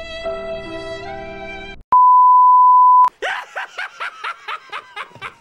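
Held notes of soft music cut off, then a loud, steady beep sounds for about a second. After it a man laughs in quick bursts, about four a second, each dropping in pitch.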